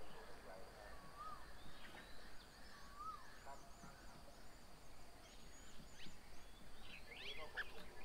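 Several birds calling. A clear arched whistle repeats twice in the first few seconds, high squeaky chirps come and go throughout, and a quick flurry of chirps comes near the end.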